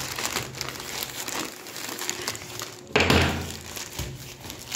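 White plastic courier mailer being cut open with a knife and handled, rustling and crinkling, with one louder, sudden burst of noise about three seconds in.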